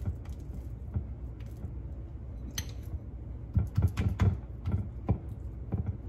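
Hands filling and rolling a flour tortilla into a burrito on a plate: scattered soft taps, knocks and rustles, busiest about three and a half to four and a half seconds in, over a low steady hum.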